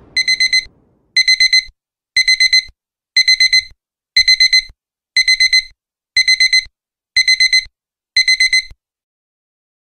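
Electronic alarm beeping in the pattern of a digital alarm clock: nine groups of four quick high-pitched beeps, about one group a second, stopping near the end.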